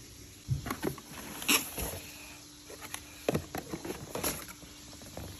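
Handling noises from unpacking: rustling packaging and a series of irregular knocks and clicks as plastic hair-dryer accessories are taken out and set down.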